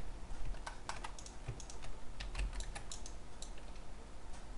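Computer keyboard keys and mouse buttons clicking at irregular intervals while shortcuts are pressed in 3D modelling software.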